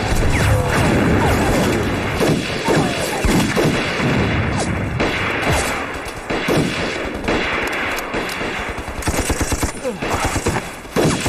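Heavy battle gunfire on a film soundtrack: overlapping rifle shots and machine-gun fire. About two seconds before the end there is a fast, evenly spaced machine-gun burst.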